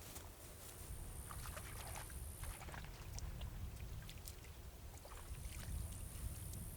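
Hands being rinsed in the water at the bank: small splashes and dribbles over a steady low rumble.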